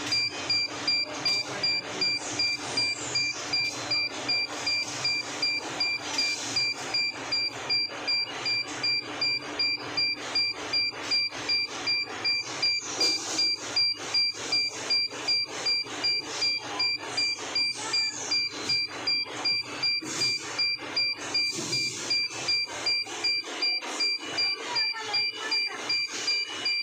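A high electronic beep pulsing steadily at about two a second, each pulse with a sharp onset.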